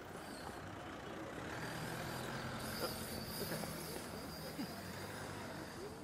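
A car driving slowly past, its engine humming steadily for a few seconds, over general city-street noise.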